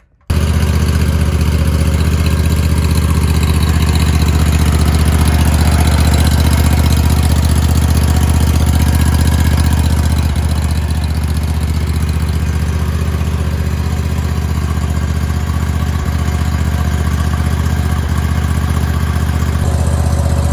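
Kawasaki twin-cylinder engine of a ride-on mower running steadily, heard loud and close, with its valve clearances freshly adjusted; it comes in abruptly about a third of a second in and dips slightly in level about halfway through.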